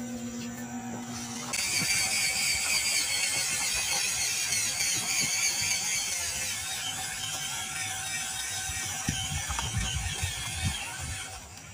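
WPL D12 RC truck's small electric motor and gearbox whirring as it drives, with a ratchety, gear-like rattle. It gets louder about a second and a half in, and a few low thumps come near the end.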